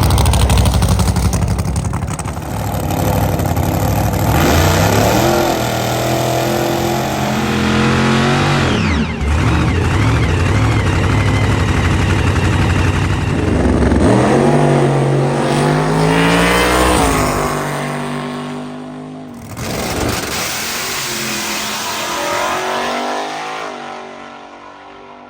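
Drag car with a blown Chevrolet engine making a full-throttle pass. The engine note climbs, drops sharply about nine seconds in, climbs again, then fades away over the last several seconds.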